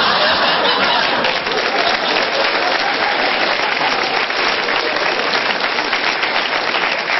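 Studio audience applauding steadily for several seconds, easing off slightly near the end.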